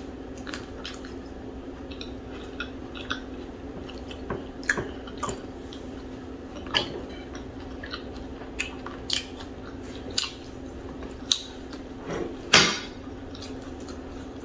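Close-miked chewing and wet mouth smacks from eating fufu with okra soup: scattered short clicks, with one longer, louder smack near the end, over a faint steady hum.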